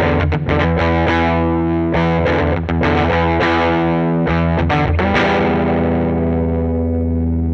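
Intro music: distorted electric guitar strummed in chords, ending on a held chord that rings out.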